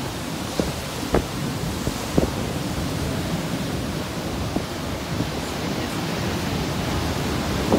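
Rough storm surf whipped up by Hurricane Dorian, waves breaking and rushing up the beach in a steady roar, with strong wind rumbling on the microphone and a few brief thumps.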